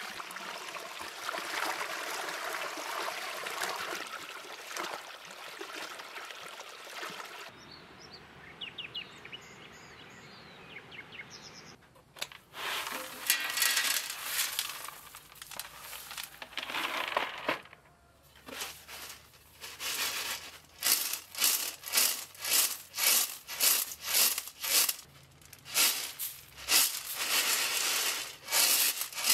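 Spring water running from a pipe into a jug. Later, sprouted grain is poured from a plastic basin into a metal tray and then shaken in the tray, rattling in regular strokes a little over once a second.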